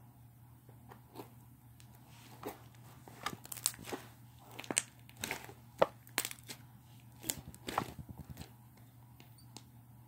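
Slime being mixed and squished by hand, giving irregular sticky pops and crackles that come thickest in the middle.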